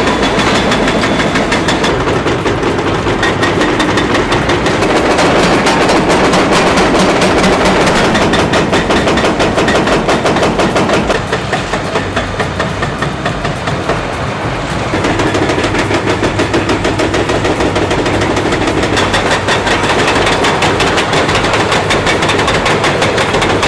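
A heavy diesel machine's engine running hard with a fast, even rattle, a little quieter for a few seconds in the middle.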